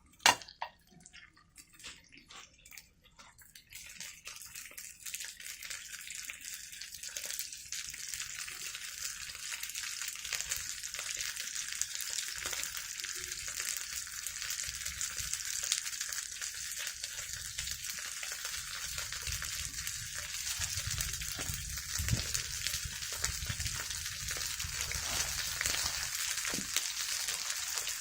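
Food sizzling in a hot frying pan over a campfire, with a few sharp clicks in the first seconds before the sizzle builds to a steady hiss.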